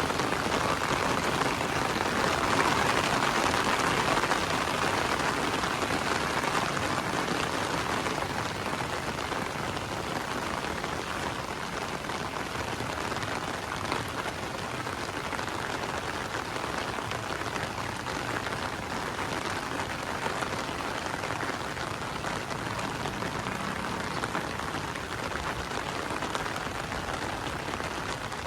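Heavy rain falling steadily, a dense even hiss of drops, a little louder in the first few seconds.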